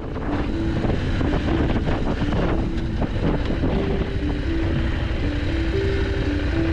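KTM 890 Adventure R's parallel-twin engine running, with wind on the microphone, as the motorcycle slows from riding speed to a crawl on a gravel road.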